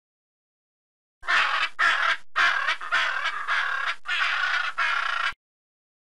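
Macaw giving a run of harsh squawks with short breaks between them, starting abruptly about a second in and cutting off sharply near the end.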